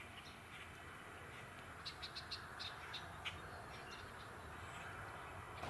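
Faint outdoor ambience: a quiet steady hiss with a quick run of short, high chirps about two to three seconds in.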